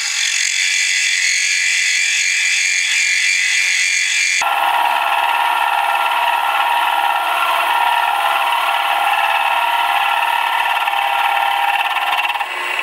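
End mill in a milling machine cutting a cast iron cylinder cover, a loud steady whine made of many tones. About four seconds in it changes abruptly to a lower-pitched whine, which stops just before the end.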